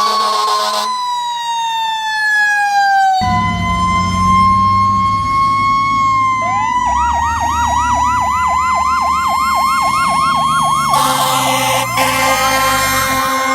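Fire truck sirens with air horn blasts. A siren wail winds down in pitch while an air horn sounds and cuts off about a second in; then a steady wail over engine rumble switches about halfway to a rapid yelp of about three rises a second, and the air horn blasts again near the end.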